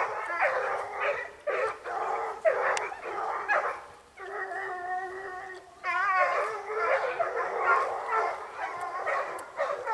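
Several young Gascon hounds baying and howling, overlapping cries with one long, drawn-out howl about four seconds in. This is the pack giving tongue on wild boar.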